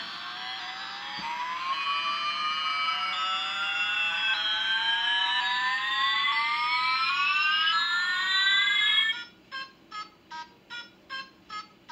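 Electronic sci-fi sound effect from a battery-operated alien toy doll: several tones slide slowly upward in pitch for about nine seconds, then break off into a rapid beeping pattern, about three beeps a second.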